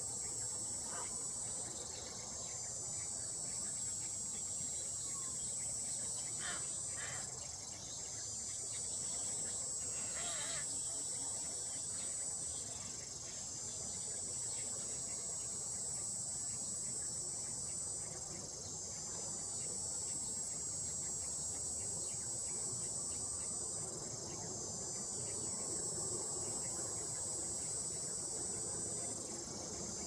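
Shrill insect chorus, a high buzzing drone that swells and dips in waves about every five to six seconds.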